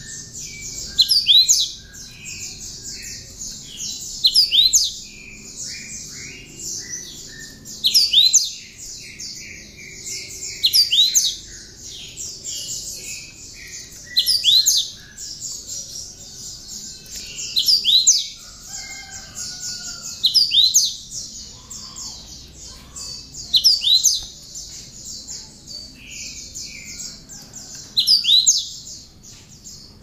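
Cinereous tit (gelatik batu) singing a song filled with mimicked bar-winged prinia (ciblek) phrases. Loud, sharp, high phrases come about every three seconds over a continuous rapid high trill, with short falling runs of notes between them.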